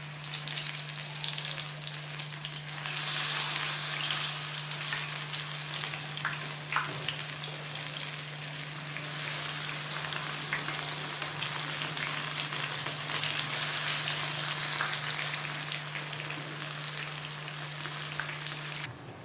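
Gram-flour-battered eggplant slices deep-frying in hot oil: a steady sizzle with scattered crackles that grows louder about three seconds in.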